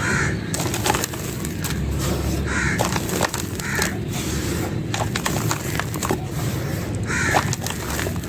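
Dry clay and brown stone being crushed by hand, giving a continuous crunching and crumbling with many small sharp cracks. Four short higher-pitched sounds stand out over the crunching.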